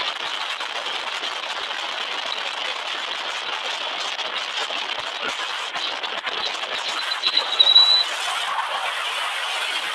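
Steady road and wind noise from a moving car, with a brief louder patch and a thin high-pitched tone a little past seven seconds in.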